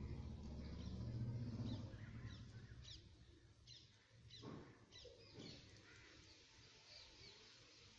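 Faint background bird chirping: a run of short, high, falling chirps, about two a second, beginning a couple of seconds in. A low rumble fades out during the first two seconds.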